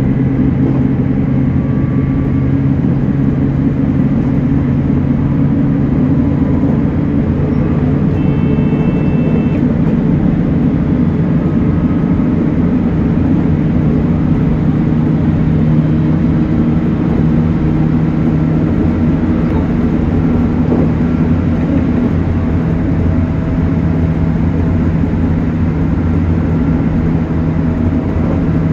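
JR Kyushu 813 series electric train running on the line: a steady rumble of wheels on rail with a low, constant hum. A brief higher tone sounds about eight seconds in.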